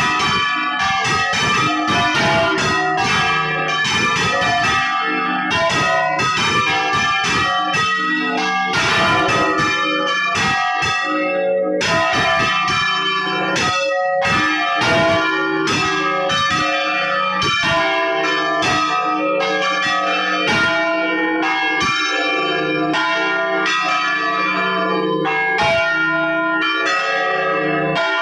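Several large bronze church bells rung by hand, swung so that their strokes overlap in a fast, loud, continuous peal with long ringing tones. The strokes thin out near the end.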